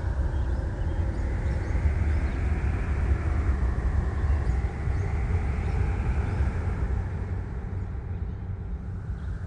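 Steady low rumbling ambient noise with faint, short high chirps now and then; the higher part of the sound thins out near the end.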